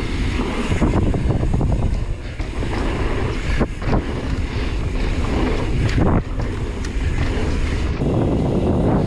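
Wind buffeting a mountain biker's action-camera microphone, mixed with tyres rolling over a dirt trail and the bike rattling, with a few sharp knocks as it hits bumps.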